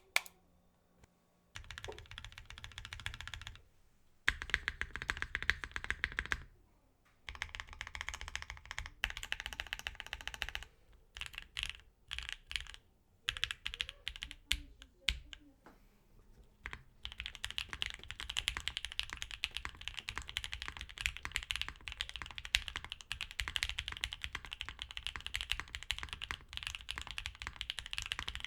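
Typing on a mechanical keyboard with lubed Durock (JWK) L2 Creamy Green linear switches, a POM plate and GMK keycaps. Runs of fast keystrokes break off for short pauses, slower separate keystrokes come about halfway, and then the typing goes on quickly without a break.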